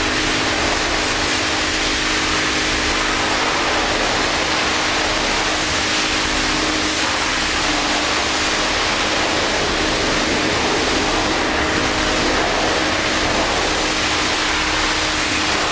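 Spray from an automated touchless vehicle wash hissing steadily as it pre-treats an excavator, the first step of a two-step wash, with a steady low hum underneath.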